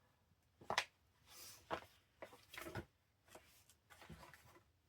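Paper and card being handled: a few light taps and short rustles, spaced irregularly, as journal pages and pockets are moved and set down.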